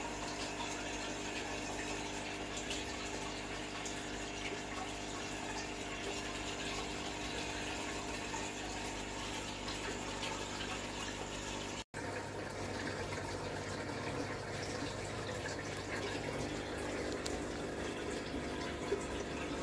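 Aquarium submersible pump running steadily: water trickling and splashing over a steady motor hum. There is a brief dropout about twelve seconds in, after which the hum changes slightly.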